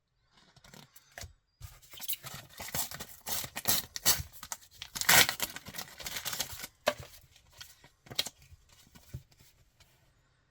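A sticker packet being torn open by hand, the wrapper ripping and crinkling for several seconds, loudest about halfway through, then a few light handling clicks as it dies away.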